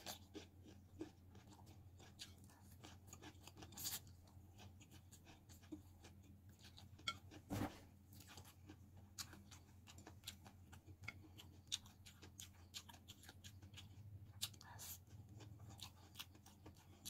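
Close-up mukbang eating sounds: quiet chewing of noodles and raw bitter gourd, with many small mouth clicks and a few louder crunches, about 4 and 7.5 seconds in.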